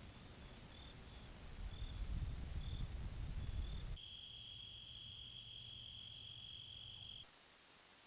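Crickets chirping at night, a short high chirp about once a second, over a low rumble that grows louder about two seconds in. About four seconds in this gives way to a steady, unbroken high insect trill that cuts off suddenly near the end.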